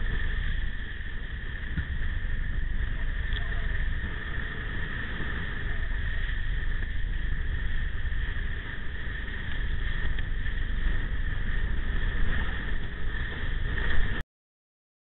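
Wind buffeting a windsurf rig's mounted camera, a steady deep rumble over the rush and hiss of the board planing across chop. It cuts off suddenly near the end.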